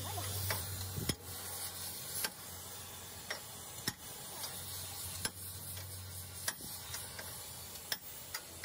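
Gas cutting torch hissing as its flame heats a heavy truck's rear wheel hub, with sharp ticks about once a second and a low steady hum underneath.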